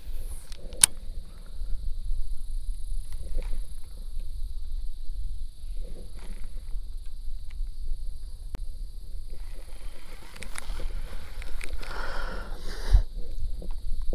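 Wind rumble on the microphone with clicks and rubbing from a baitcasting rod and reel being handled while a crankbait is fished; a louder scrape of handling noise comes near the end.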